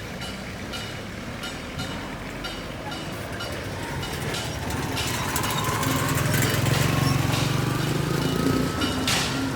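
Heavy engine running steadily, growing louder over the last few seconds, with faint repeated ticking over it.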